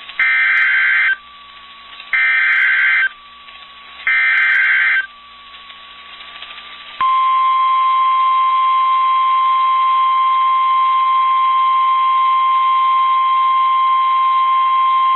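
NOAA Weather Radio Emergency Alert System signal. Three one-second bursts of SAME digital header data screech out two seconds apart. About seven seconds in, the steady single-pitch 1050 Hz warning alarm tone starts, announcing a severe thunderstorm warning.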